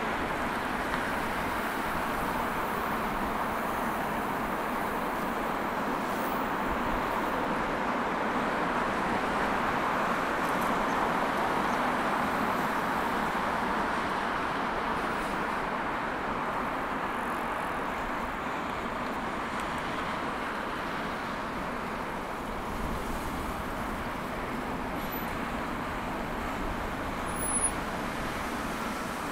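Steady noise of road traffic on a busy city road, swelling a little around the middle, with a brief sharp sound near the end.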